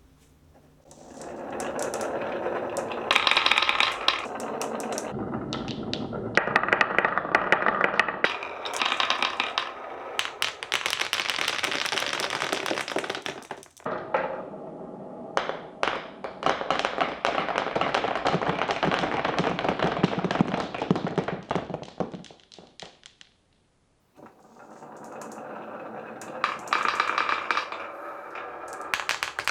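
Glass marbles rolling and clattering down wooden marble-run tracks: a dense rattle of rapid clicks and knocks that comes in several runs, with a short break about 14 s in and a brief silence just before 24 s.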